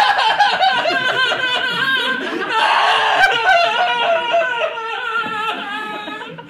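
Audience laughing at a comedy punchline, with a noisier swell of laughter about two and a half seconds in, tailing off near the end.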